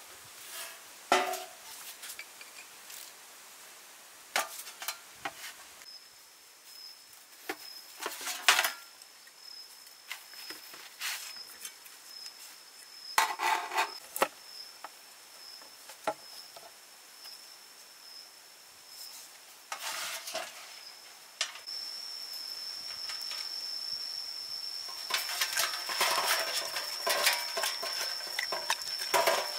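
A whole piranha being prepared by hand in a stainless steel tray, with scattered knocks and metallic clinks against the tray and a wooden table, and denser scraping and rubbing over the last few seconds. An insect keeps up a steady high trill from about six seconds in.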